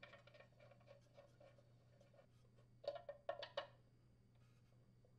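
Faint scratching as a new fuel filter is turned by hand into the threaded port of a plastic snowblower fuel tank, then a quick run of sharp clicks about three seconds in as a wrench is set on the filter to snug it down.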